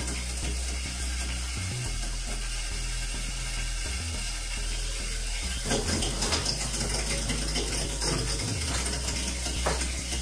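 Toilet tank fill valve filling on a low-opened supply, hissing and rattling as air works out of the water lines. A few handling knocks about six seconds in and again near the end.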